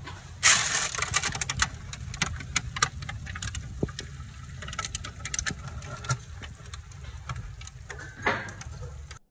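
Baking paper rustling as it is pulled off a hot tray of roast lamb chops in an open oven, then scattered crackles and ticks over a steady low hum.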